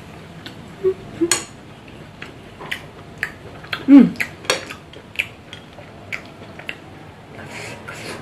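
Chopsticks clicking and scraping against a small ceramic bowl while eating, in many light, irregular taps, with a brief hum of voice about four seconds in.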